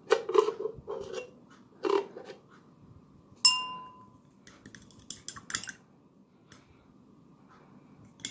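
Milk poured from a can into a glass of butterfly pea tea, then a metal spoon stirring it and clinking against the glass. One clear ringing ding about three and a half seconds in, followed by lighter clinks.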